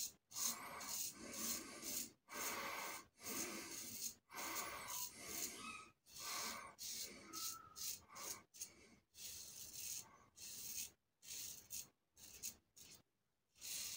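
Parker Variant adjustable safety razor with a Sputnik blade, set to 4, scraping through lathered stubble on the chin and neck, each stroke a crisp rasp with short pauses between. The strokes get shorter and quicker in the second half.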